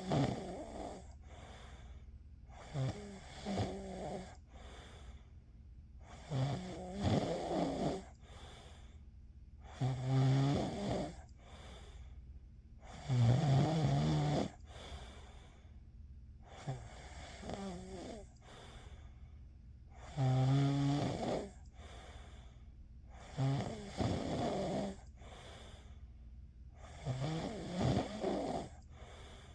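A sleeping person snoring in a steady rhythm, about one snore every three and a half seconds.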